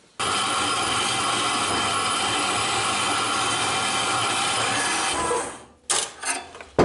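Portable metal-cutting bandsaw running and cutting through metal bar stock, a steady dense rasp that winds down about five and a half seconds in. A few short knocks follow near the end.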